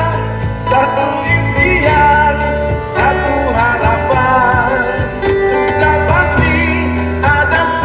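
Live busker band playing a rock song through a small amplifier: a man sings with wavering, held notes over strummed acoustic guitar and electric bass.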